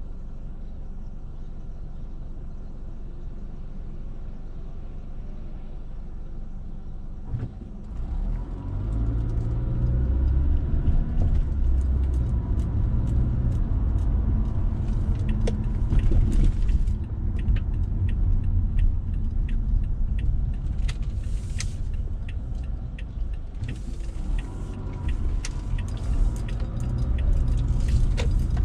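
Car cabin noise: a quiet, steady engine idle while the car is stopped, then about eight seconds in it pulls away and a much louder low rumble of engine and tyres takes over, with scattered sharp clicks throughout.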